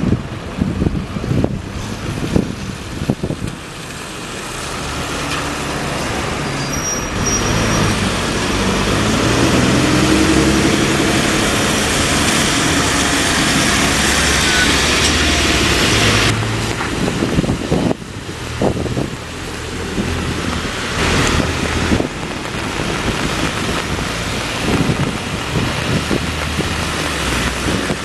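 Traffic noise with a heavy vehicle's engine running as it passes, loudest from about eight to sixteen seconds in, then dropping off suddenly.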